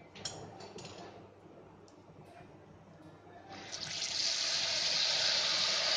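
Sel roti batter poured by hand into hot oil in a frying pan. The oil breaks into a loud, steady sizzle about three and a half seconds in. Before that come a few light clicks from hands scooping batter in a steel bowl.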